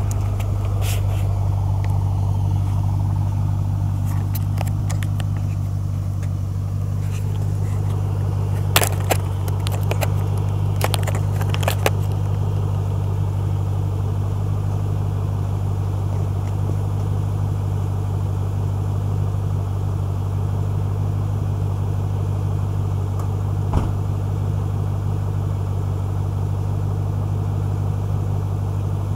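2006 Mustang GT's 4.6 L V8 idling steadily through Magnaflow axle-back mufflers, a low even burble. A few sharp clicks and knocks sound around a third of the way in, and one more knock later.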